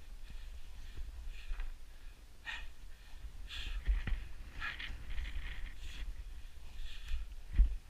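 A climber breathing hard in short, repeated puffs while crawling along a rock ridge, over wind rumble on the microphone. A few knocks of hands or knees on the rock come about four seconds in and near the end, the last one the loudest.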